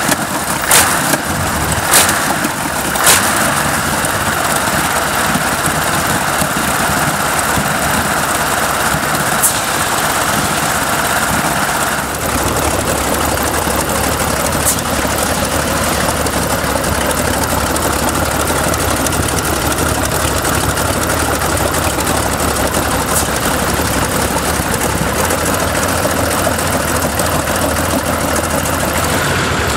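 BMW Brutus's vintage BMW V12 aero engine starting: a few sharp bangs in the first three seconds, then it settles and runs at a steady low idle, its low end filling in about twelve seconds in.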